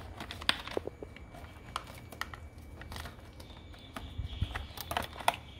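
Irregular light clicks and rustling of plastic connectors and wires being handled as a scooter's old wiring harness is pulled out.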